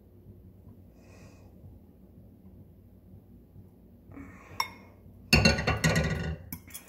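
A metal fork beating a raw egg in a glass bowl, clinking rapidly against the glass in a loud clatter that starts about five seconds in, after a single light clink.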